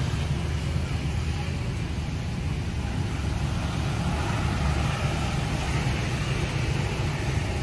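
Steady outdoor background rumble, heaviest in the low end, with no distinct events standing out.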